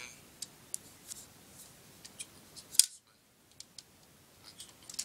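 Handling noise from a handheld iPod camera: an irregular run of sharp clicks and taps, the loudest a little before three seconds in. The sound drops out briefly just after it.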